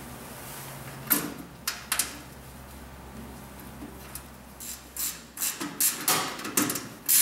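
Scattered sharp clicks and knocks of hands and tools working on metal parts inside a diesel generator's side panel, coming thicker in the second half. Under them a low steady hum stops about five seconds in.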